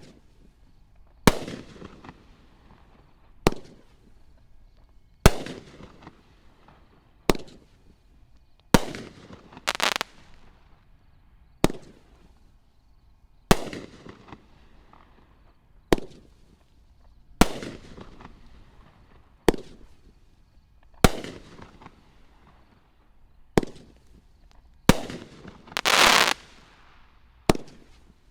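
500-gram consumer fireworks cake firing shot after shot: a sharp shell-break bang about every two seconds, each trailing off. Twice a denser burst lasts about a second.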